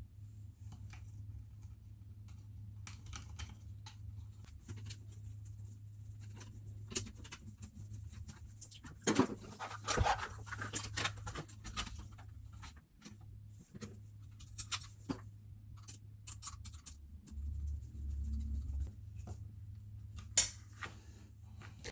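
Small clicks, scrapes and taps of a Samsung washer's new drain pump motor being fitted into its pump housing, with a few louder knocks about nine to ten seconds in and a sharp click near the end. A low steady hum runs underneath.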